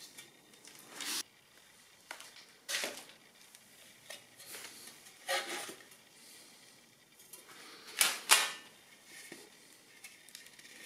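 Handling sounds of a thin 1 mm steel plate and pine blocks being picked up and moved on a workbench: four or five short scraping, rustling noises, the loudest about eight seconds in.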